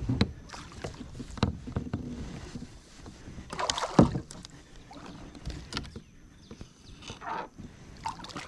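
Handling noises in a kayak while a hooked bass is landed: scattered knocks and bumps, the loudest a sharp knock about four seconds in.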